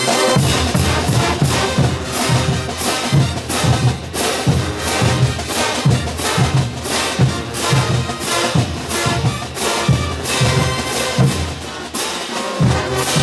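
Full street brass band playing: bass drums and pairs of crashing hand cymbals keep a steady beat of about two a second under sousaphones, trumpets and trombones.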